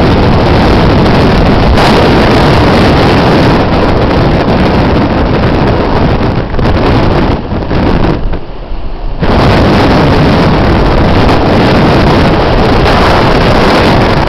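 Storm wind blasting the microphone in a loud, steady rush of noise, dropping away briefly about eight seconds in before coming back.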